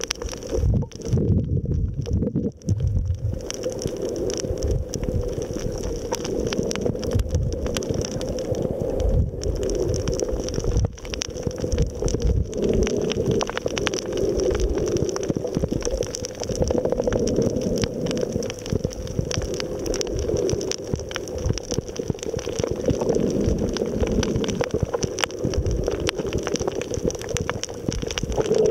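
Muffled underwater noise picked up by a submerged camera: water gurgling and sloshing over a steady low rumble, swelling and ebbing.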